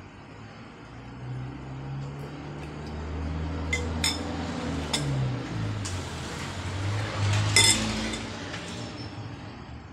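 Metal spoon clinking against a ceramic soup bowl a few sharp times, the loudest about three-quarters through. A low droning rumble that wavers in pitch swells underneath.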